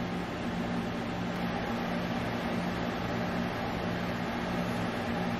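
Steady hum and hiss of a motor-driven fan running, with an even tone and no knocks or clicks.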